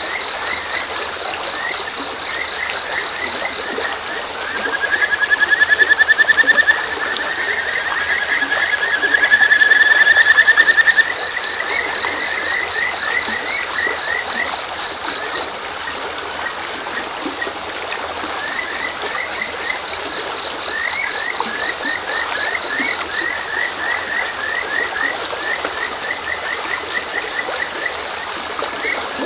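Kajika frogs (Buergeria buergeri) calling over the steady murmur of a shallow river: runs of short rising notes, swelling into two louder, long rising trills about five and nine seconds in. Crickets chirp in the background.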